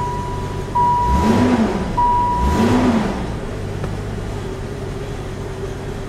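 A 1995 Jeep Grand Cherokee's engine running just after starting, blipped twice, about a second and two and a half seconds in, then settling to a steady idle. A dashboard chime sounds a steady tone, restarting about every second and a quarter, and stops about two and a half seconds in. The engine starting and running is the sign that the repaired engine computer (PCM) has cured the no-start.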